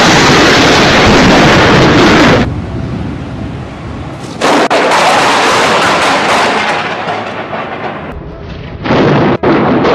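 Thunder from close lightning strikes: three loud, sudden cracks of thunder with rumbling between them. The first runs about two seconds and drops off suddenly, the second hits about four and a half seconds in, and the third comes near the end.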